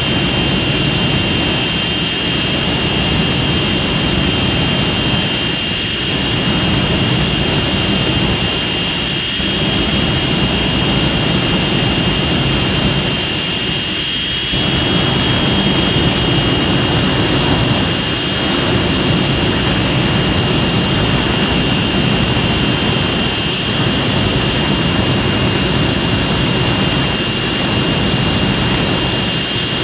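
Jet engine running at steady high power: a continuous loud roar with a steady high-pitched whine on top.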